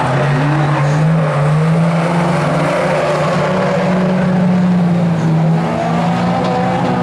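Several small hatchback race cars running hard together as a pack goes past, engines revving with notes that rise and fall over a steady drone.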